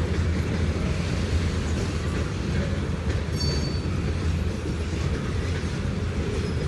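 Loaded freight train of boxcars rolling past at steady speed: a continuous low rumble of wheels on rail. A brief high squeal from the wheels comes about halfway through.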